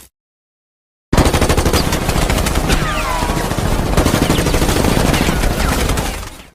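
Film sound effect of sustained rapid automatic gunfire, a dense rattle of shots starting about a second in and stopping just before the end, with a few falling whines in the middle.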